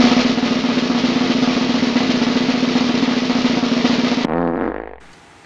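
Snare drum roll sound effect, loud and steady. About four seconds in it breaks off with a brief falling sound.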